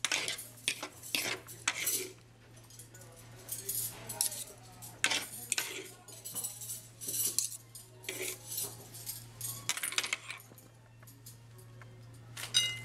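Metal serving spoon and fork clinking and scraping in a wooden salad bowl and against a plate as Caesar salad is lifted and plated, in irregular short clinks with quieter pauses between.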